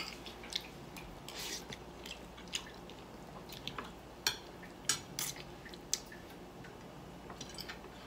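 Spoon and fork clinking and scraping against a ceramic plate, about ten light clicks at irregular intervals.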